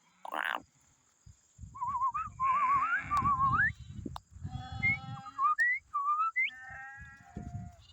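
Sheep and lambs bleating, several wavering calls in the second half, with a warbling whistle that glides upward several times a couple of seconds in.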